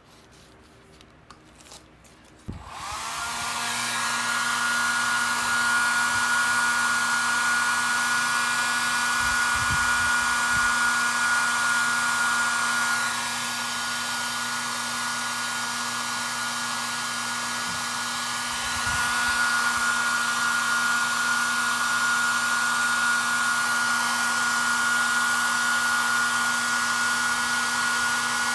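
A hand-held hot-air blower switches on about two and a half seconds in, spinning up into a steady whine over a rush of air, and keeps running. It drops a little in level for several seconds in the middle, then comes back up.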